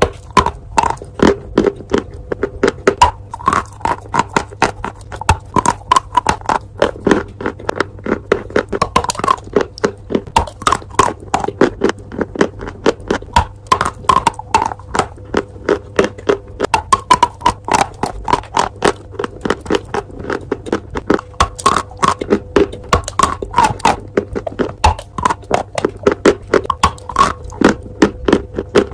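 Chalk being bitten and chewed close to the microphone: a rapid, continuous run of sharp crunches, about three to four a second.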